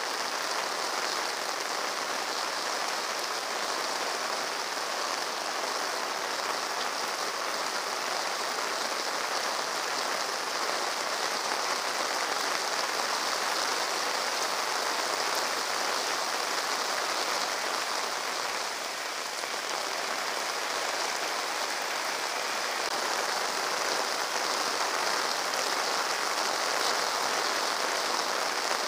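Heavy rain falling steadily on a paved street: an even, unbroken wash of noise.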